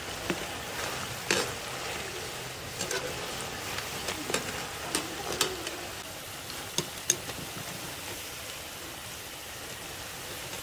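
Spinach pakoras deep-frying in hot oil in a metal pan, a steady sizzle, with a wire skimmer scraping and tapping against the pan as they are turned. The taps come mostly in the first seven seconds, the loudest about a second and a half in and again about seven seconds in.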